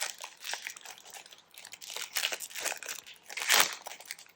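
Wrapper of a Magic: The Gathering set booster pack crinkling and tearing as it is worked open by hand, a wrapper so stiff it is hard to open. Irregular crackles run throughout, with the loudest rip about three and a half seconds in.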